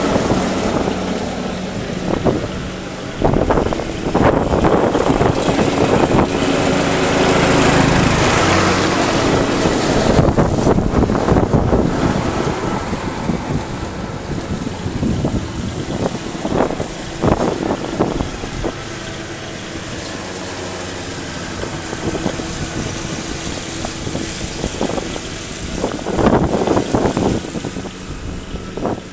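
Riding lawn mower engine running steadily, its level rising and falling as the mower moves.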